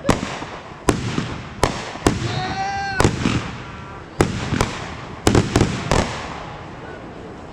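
Aerial fireworks going off: about ten sharp bangs, some in quick pairs, each trailing off in a rumbling echo. The bangs stop about six seconds in.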